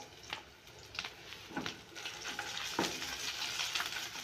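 Green chillies and ginger-garlic paste sizzling in hot oil with whole cumin seeds, stirred with a wooden spatula that clicks against the pan a few times; the sizzle grows louder about halfway through.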